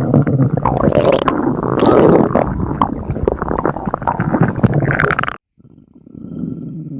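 Human stomach growling loudly, a continuous gurgling rumble full of squeaks and pops, which cuts off suddenly about five seconds in. A fainter, lower rumble starts shortly after.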